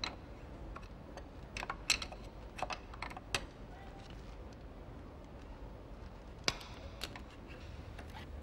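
A screwdriver and metal parts making scattered, irregular light clicks and taps while a Jubilee hose clip is worked on a Cosworth 2.9 24V V6 on an engine stand.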